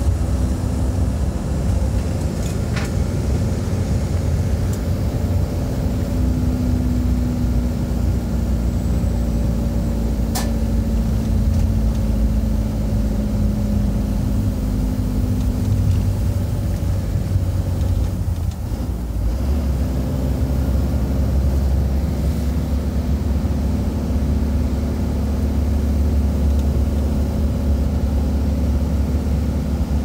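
Engine drone and road noise of a moving vehicle heard from inside it, steady and low, with a brief dip about two-thirds of the way through. A single sharp click about a third of the way in.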